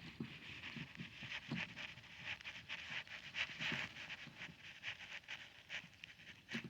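Faint, irregular footsteps of a person walking outdoors, a few soft steps a second.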